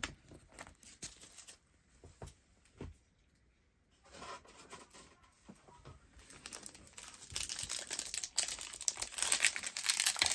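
A few faint taps and clicks, then a foil Bowman 1st Edition baseball card pack crinkling and tearing as it is opened by hand, getting louder from about two-thirds of the way through.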